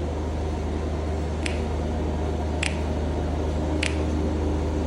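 A steady low machine hum under a noisy background, with a short sharp click about every 1.2 seconds, four in all.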